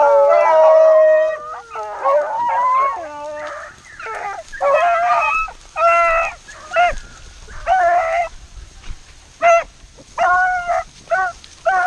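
A pack of beagles giving tongue as they run a rabbit's track: many voices bawling together at first, then separate bays following one another through the rest of the run.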